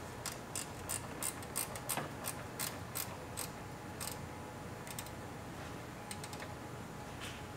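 Ratcheting wrench clicking as bolts are tightened by hand: quick runs of pawl clicks, about three a second for the first few seconds, then a few scattered clicks.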